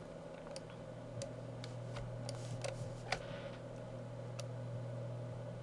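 A handful of sharp computer mouse clicks at irregular intervals, the last about four and a half seconds in, over a steady low hum.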